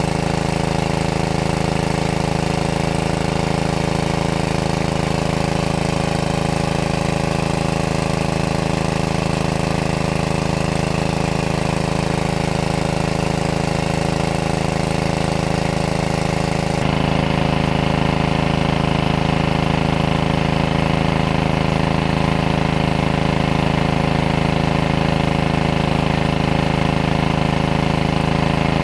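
A small engine running steadily at a constant speed, with a sudden change in its sound about two-thirds of the way through.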